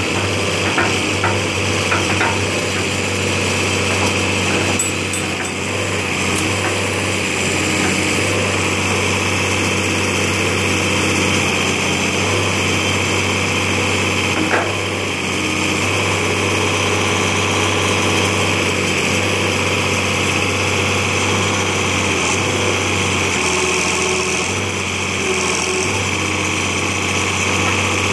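International 3600A backhoe's engine running steadily under light, changing load as the machine is worked, with one sharp knock about halfway through.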